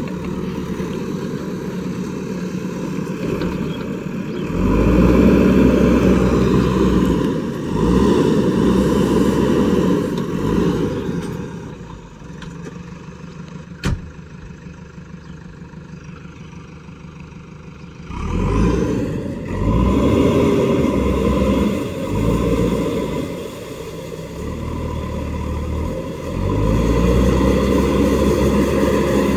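JCB 3DX backhoe loader's diesel engine working in loud surges as the machine drives through a shallow river, with its wheels churning and splashing the water. It eases to a quieter idle for several seconds in the middle, broken by a single sharp click.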